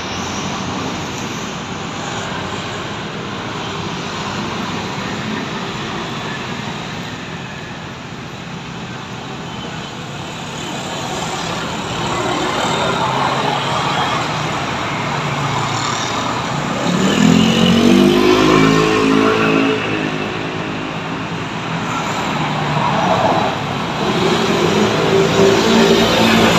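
Street traffic at an intersection: scooters and cars running past. An engine pulls away, rising in pitch, about two-thirds of the way through, and another passes near the end, the loudest moments.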